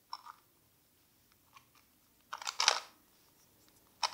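Plastic pieces of a Ghost Barrel Hedgehog shape-mod 3x3 twisty puzzle clicking and clacking as its layers are turned by hand: a few light clicks, with a louder clatter of clicks about two and a half seconds in.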